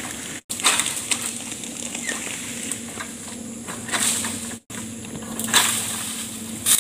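Long-pole oil palm harvesting sickle working in the crown of a tall palm: short bursts of rustling and scraping as it cuts at the fronds and bunch, over a steady low hum. The sound cuts out completely twice for a split second.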